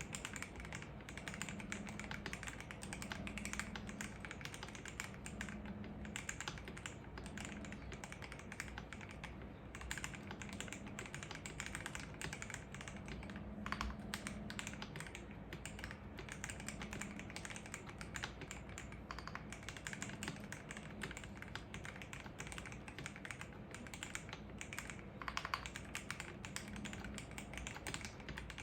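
Steady, continuous typing on a KBD67 Lite R3 mechanical keyboard with Akko CS Starfish switches lubed with Krytox 205g0, Poron case foam and Red Samurai keycaps: a rapid run of key clicks, with a few heavier strokes about halfway through and near the end.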